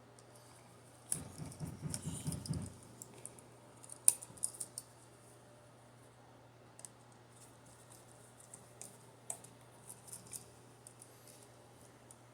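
Light clicks and ticks of a screwdriver, pliers and copper wire being handled while a receptacle's black wires are looped onto its screw terminals. A denser run of clicking and handling comes about a second in, then scattered single ticks.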